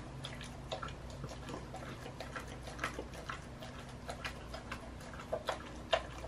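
A dog licking peanut butter from an enamel metal bowl: irregular wet licks with small clicks of tongue and muzzle against the bowl, several a second.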